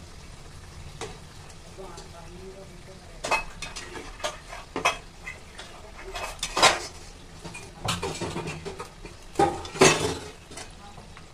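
Perforated steel skimmer scraping and clinking against a kadhai and a wire-mesh frying strainer while fried dumplings are lifted out of the oil. The clinks start a few seconds in and come irregularly, the loudest two about two-thirds of the way through and near the end.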